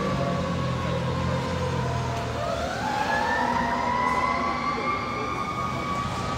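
Fire truck siren wailing as the truck pulls away: the pitch slides slowly down, then rises again about two and a half seconds in and holds high, over a low engine rumble that fades about halfway through.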